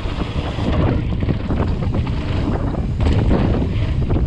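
Wind buffeting a head-mounted action camera's microphone at speed, over mountain bike tyres rumbling on a dirt trail and the bike rattling over bumps, with many short knocks.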